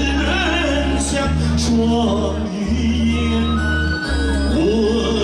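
A man singing a Mandarin song into a handheld microphone over backing music with a steady bass line.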